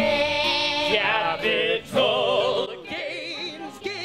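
A woman singing long held notes with a wide vibrato, over low sustained notes beneath.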